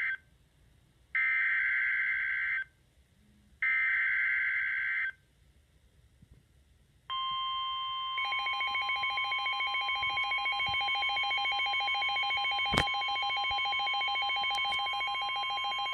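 Emergency Alert System broadcast tones: the tail of one SAME header data burst, then two more screeching data bursts of about a second and a half each. After a pause of about two seconds, a steady attention tone starts and is joined a second later by a second, rapidly pulsing tone, with one sharp click partway through.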